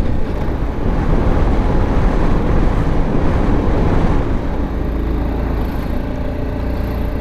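BMW G 310 GS single-cylinder motorcycle engine running on the move, with wind and road noise. For about the first four seconds, on a rough dirt track, the noise is rough and covers the engine; then a steady engine hum comes through.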